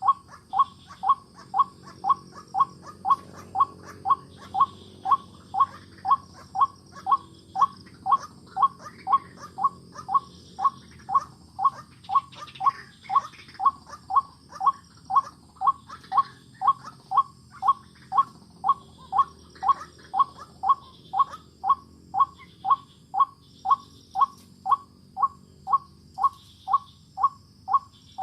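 White-breasted waterhen (ruak-ruak) call notes repeated evenly, about one and a half to two a second, as used to lure wild waterhens to a trap. Faint steady high insect trilling runs behind them.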